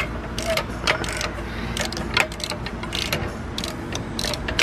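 Hand wrench working a bolt on engine parts, giving irregular metallic clicks and clinks a few times a second.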